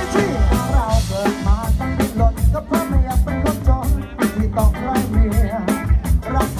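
Thai rot hae parade-truck band playing loud, upbeat music: a heavy, evenly spaced kick-drum beat with bass and a melodic lead line that wavers in pitch.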